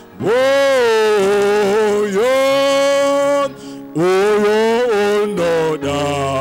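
A man singing a hymn into a microphone, in long held notes that slide between pitches, with short breaks between phrases.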